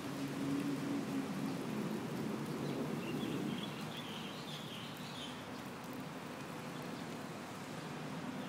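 Steady outdoor background noise with a low drone during the first three seconds or so, and a few faint high bird chirps about three to five seconds in.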